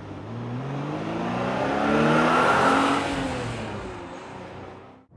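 A car engine revving: its pitch climbs for about two and a half seconds, then falls back and fades out.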